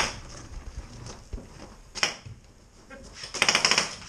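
Airsoft gunfire: a sharp crack at the start and another about two seconds in, then a short rapid burst of shots near the end, the loudest part.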